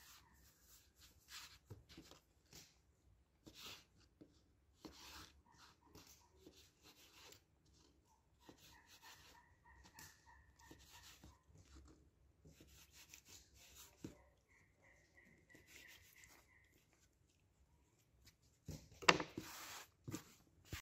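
Hands rolling and pressing soft dough on a floured wooden board, then a knife cutting the dough log into pieces with light taps against the board, in short irregular rubs and knocks. A louder knock and clatter on the board near the end.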